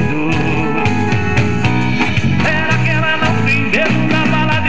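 Sertanejo song: a man singing into a microphone over guitar-led accompaniment with a steady beat.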